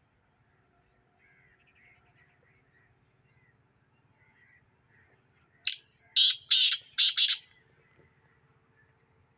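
Black francolin calling: a loud series of one short note followed by four longer notes in quick succession, lasting about a second and a half, starting a little past halfway. Faint chirps of small birds come before it.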